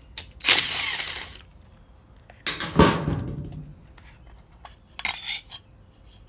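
Cordless driver whirring in two short runs, the second falling in pitch, as it backs out the screws of the breaker-points cover on a Briggs & Stratton engine. Light metallic clinks come about five seconds in.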